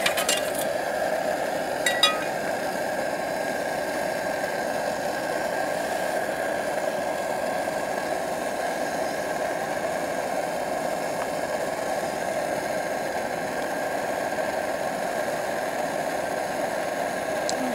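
Backpacking stove burner running steadily under a pot of water, turned down to a simmer. A couple of sharp clicks come in the first two seconds.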